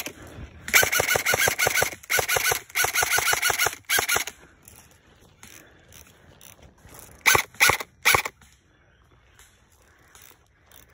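Airsoft guns firing: a sharp single crack at the start, then several long full-auto bursts of rapid clicks over the first four seconds, and three short bursts a little after seven seconds.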